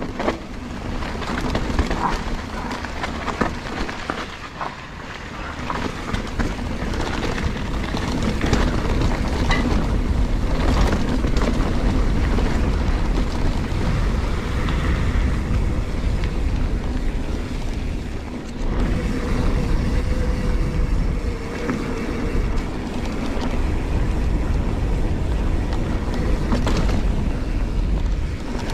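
Giant Trance mountain bike ridden down a dirt singletrack: wind rushing over the camera microphone with tyre rumble on dirt and frequent clicks and rattles from the bike over bumps.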